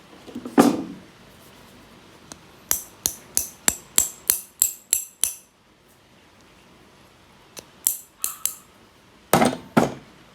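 Sharp metal-on-metal taps and clicks from working a metal tool: one knock, then a run of about ten evenly spaced ringing taps at roughly four a second, three more taps, and two heavier knocks near the end.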